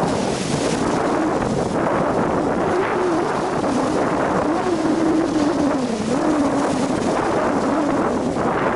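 Strong wind buffeting the microphone over sea surf at a rocky shore, a steady loud rush. From about three seconds in, a wavering hum rises and falls in pitch under the rush.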